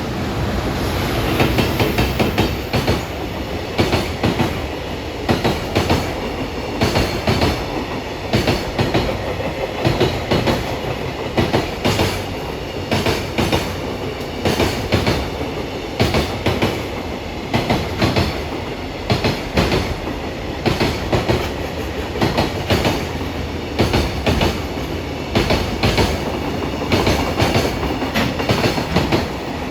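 A JR Freight container train, an EF210 electric locomotive with Koki container wagons, passing at speed, its wheelsets clattering over rail joints in quick groups of clicks that repeat about once a second under a steady rumble.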